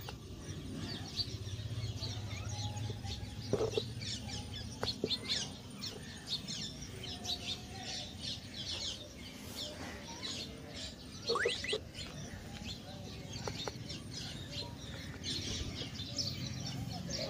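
Small birds chirping, many short high calls one after another, over a low steady background hum.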